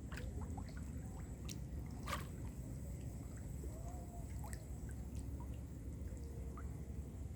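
Water dripping and trickling over a low, steady rumble, with scattered small clicks and one sharper click about two seconds in.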